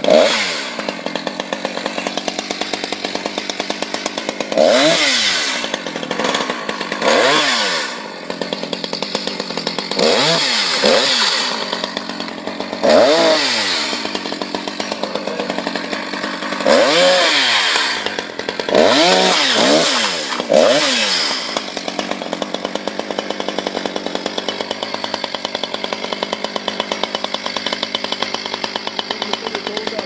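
Two-stroke chainsaw revved up and let back down about eight times in the first two-thirds, then idling steadily.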